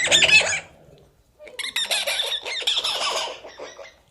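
An animal's high-pitched calls: a short loud burst at the start, then a run of rapid cries lasting about two seconds.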